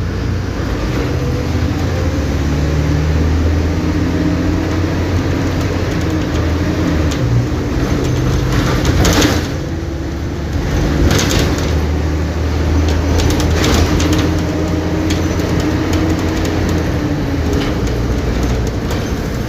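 Mercedes-Benz OF-1722M bus's 218 hp four-cylinder turbodiesel running under way, a steady engine drone. Around ten seconds in there are a few sharp clacks and a brief dip in the engine sound.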